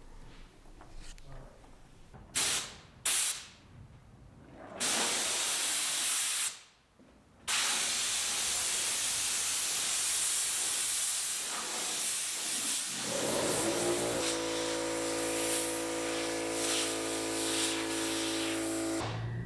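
Compressed-air blow gun hissing as sanding dust is blown off a wooden door: two short blasts, then long steady blowing with one break. About 13 seconds in, a motor starts and hums steadily under the hiss, most likely the air compressor kicking on.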